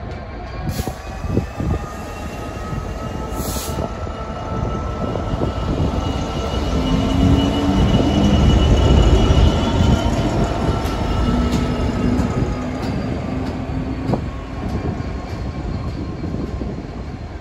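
Class 66 diesel-electric locomotive running light past at close range. Its two-stroke diesel engine grows louder to a peak as the cab and engine room pass, about eight to ten seconds in, then fades as it moves away. A high whine over the engine rises and then falls in pitch as it passes.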